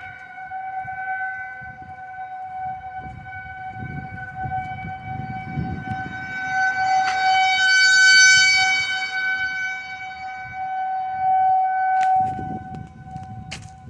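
Outdoor civil defense warning siren sounding during a scheduled test: one steady, unwavering tone, its loudness swelling and fading, loudest about eight seconds in.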